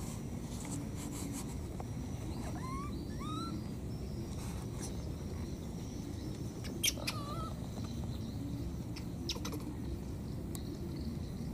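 Outdoor ambience: a steady low rumble with a few short chirping calls, two rising ones a few seconds in and a wavering one past the middle, plus a couple of sharp clicks.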